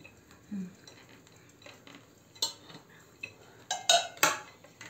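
A small plate clinking and knocking against a round metal baking tray as it presses down shredded kadayıf pastry: a few sharp clinks, the loudest about four seconds in.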